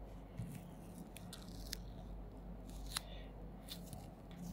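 Faint, scattered sharp clicks and ticks, about eight in all with the sharpest about three seconds in, over a low steady hum.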